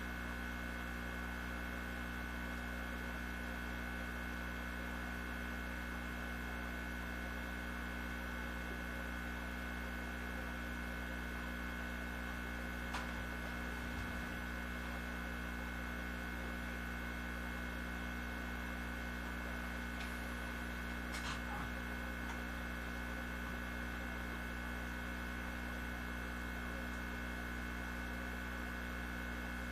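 Steady electrical hum with a steady high tone in it, broken only by two faint clicks, one a little before halfway and one about two-thirds of the way through.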